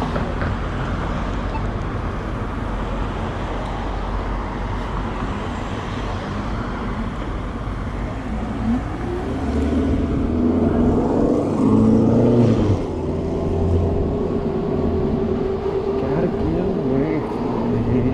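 City street traffic: an even rush of road noise, and from about nine seconds in a nearby motor vehicle's engine running louder, its pitch rising and falling for several seconds.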